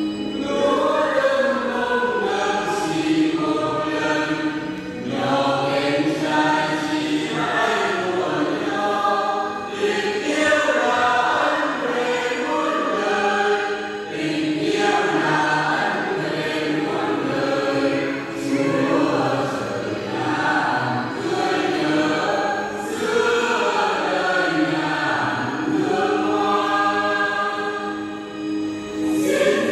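Church choir singing a hymn, several voices in continuous sung phrases.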